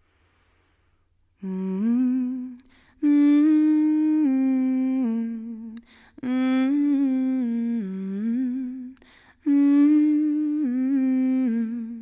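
A singer humming a slow, wordless melody with no accompaniment, starting about a second and a half in, in four phrases with short breaths between them.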